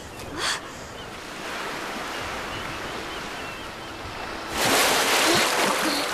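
Sea water washing steadily, then a loud surge of splashing water about four and a half seconds in as a swimmer breaks the surface.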